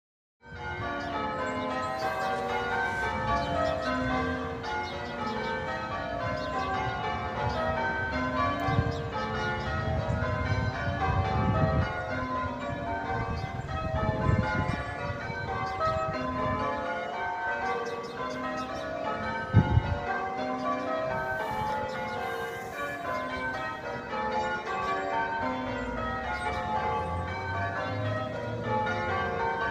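A ring of church tower bells being rung in changes, the bells striking one after another in a continuous, shifting sequence. There are patches of low rumble, and a brief thump about twenty seconds in.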